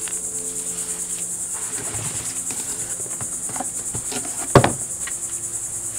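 Steady high-pitched chorus of insects, rapidly pulsing, with light knocks of cardboard and packaging being handled and a sharper thump about four and a half seconds in.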